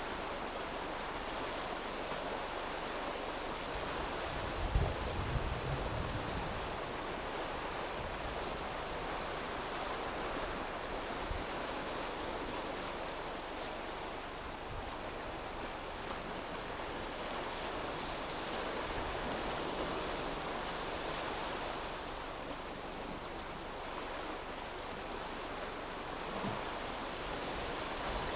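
Rough sea surging and breaking in strong wind: a steady rush of waves and wind, with a brief low rumble about five seconds in.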